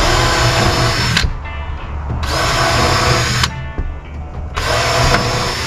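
Cordless power drill driving screws into wooden deck boards, in three bursts of about a second each, a second or so apart.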